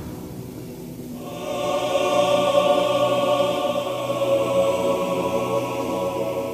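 Background music: a sustained, choir-like chord swells in about a second in and is held steadily.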